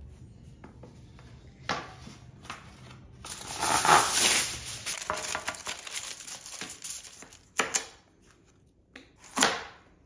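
Aluminium foil crinkling and crumpling as it is pressed into a baking pan, loudest a few seconds in. A few separate knocks of things being set down on the counter break it up, one near the end.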